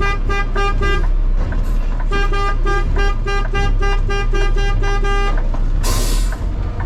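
Garbage truck's warning beeper sounding in a rapid run of beeps, about four a second, over the truck's engine running steadily; the beeping stops about a second in, starts again about two seconds in, and stops again. Near the end there is a short burst of air hiss.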